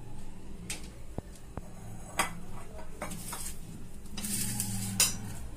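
Metal utensil clinks and knocks against a kadai as its oil heats, a handful of sharp strikes with the loudest near the end, and a short hiss shortly before it. A steady low hum runs underneath.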